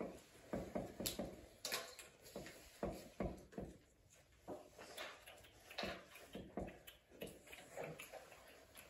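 Dry-erase marker writing on a whiteboard: a faint run of short, irregular strokes and taps as figures and symbols are written.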